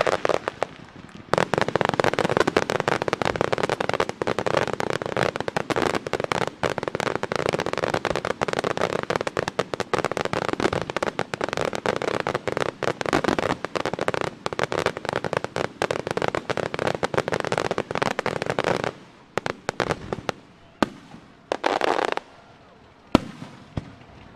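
Starmine fireworks barrage: many shells bursting in rapid succession as a dense crackle of bangs. Starting about a second in, it stops after about eighteen seconds, thinning to a few separate bangs, with one sharp, loud bang near the end.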